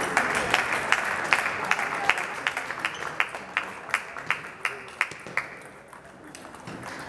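Table tennis ball ticking sharply and evenly, about two or three times a second, as it is bounced and struck on the table and bats, over the background clatter and murmur of a sports hall. The ticks fade out about five and a half seconds in.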